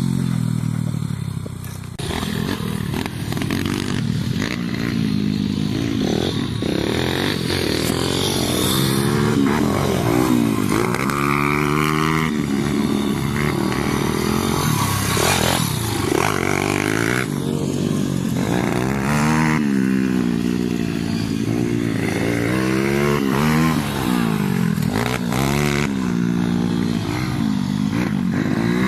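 Pit bike engines ridden hard on a dirt track, revving up and dropping back again and again, every second or two.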